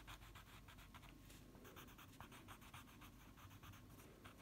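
Faint scratching of a watercolour pencil lead being stroked quickly back and forth over plywood, colouring in.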